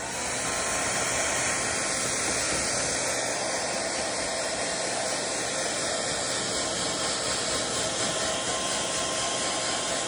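Hair dryer switched on and blowing steadily at one setting, a constant rush of air with a faint motor whine, used to dry a cockatoo after a bath.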